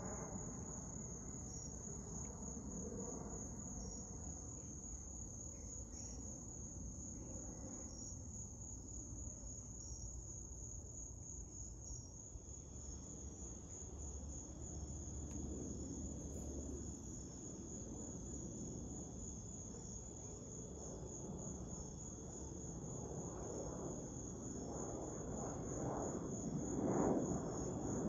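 A steady chorus of insects, an evenly pulsing high trill, with a second high insect tone joining about halfway through. Under it, the broad rumble of a twin-engine jet airliner passing overhead grows louder near the end.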